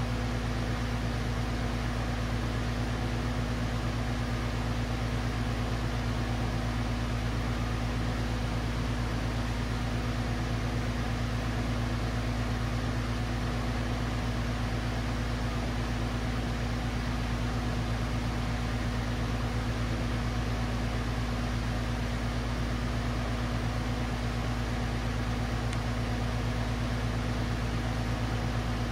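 Steady hiss of a gas torch flame preheating a copper part for silver soldering, with a steady low hum underneath.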